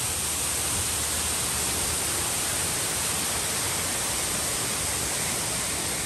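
Waterfall rushing steadily at its base: an unbroken, even hiss of falling water splashing on rock.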